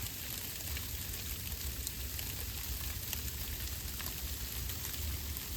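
Ice pellets (sleet) falling: a steady hiss made of many tiny clicks as the ice hits surfaces, with a steady low rumble underneath.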